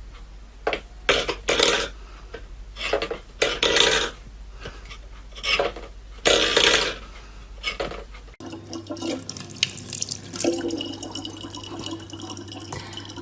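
Water splashing in short irregular bursts; then, after a cut, water running steadily from a tap into a sink, with a steady hum underneath.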